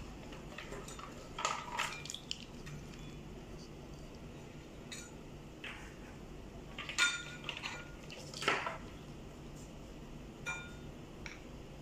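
Plastic wiring-harness connectors and cables clicking and rattling as they are handled on a car navigation head unit's metal chassis: scattered light clicks, with a busier cluster about seven to nine seconds in.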